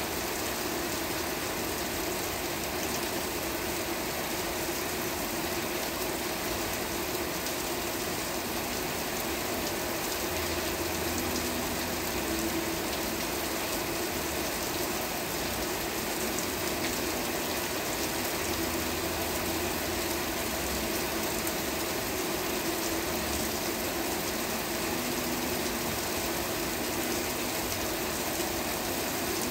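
Steady rain falling, an even hiss without a break, with a faint low hum that comes and goes in the background.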